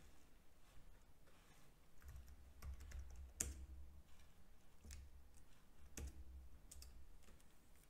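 Faint computer keyboard typing: a handful of separate key presses at an uneven pace, starting about two seconds in, with the loudest about three and a half seconds in.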